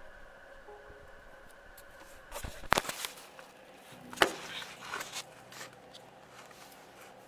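Quiet room tone as the last notes of background music die away, then a cluster of sharp clicks and knocks about two and a half seconds in and another sharp click about four seconds in: handling noise.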